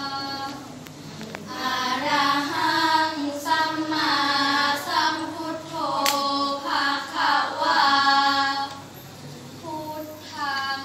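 A group of five girls chanting a Buddhist praise of the Triple Gem in unison in the Thai sarabhanya melody, in long sung phrases with held notes.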